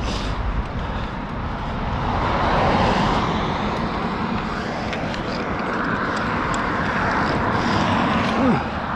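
Steady wind and road rush on a camera worn by a cyclist riding along a street, swelling twice as cars pass. Near the end comes a short squeak that falls in pitch.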